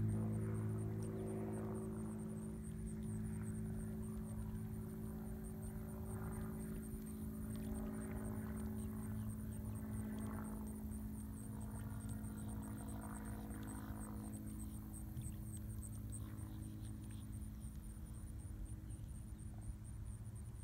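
Steady low motor hum, with a fast, high-pitched pulsing trill running over it.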